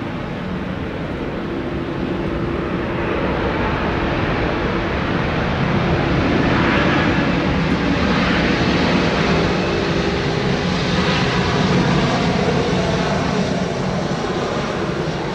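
British Airways Embraer E190's twin GE CF34 turbofan engines on the landing rollout. The jet roar with a steady low engine hum swells as the aircraft comes past, then eases slightly near the end.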